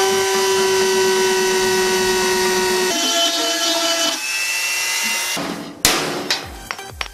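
Handheld rotary tool running at high speed, grinding a small steel bracket, with a steady whine that changes pitch about three seconds in and again at about four. From about six seconds in come a few sharp metal knocks.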